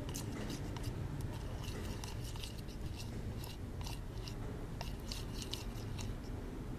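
Glue being stirred in a container with a mixing tool: irregular scraping and clicking of the tool against the container, over a steady low rumble.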